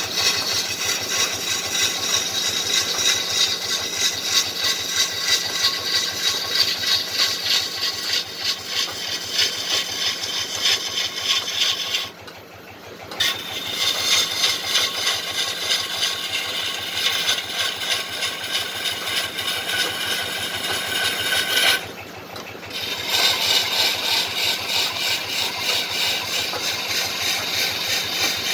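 Wood lathe spinning a kendang drum body of fruit wood while a hand tool works the surface, a fast, even, rhythmic scraping. The scraping drops away briefly twice, about twelve and twenty-two seconds in.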